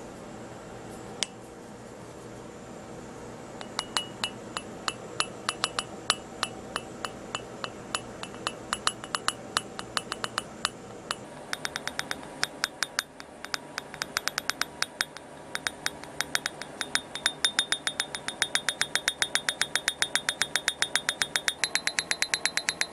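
Short, high-pitched ringing ticks, sparse and irregular at first, then coming faster until about five a second, with a step up in pitch near the end: a homemade guided-missile radar lock-on beeping sound effect.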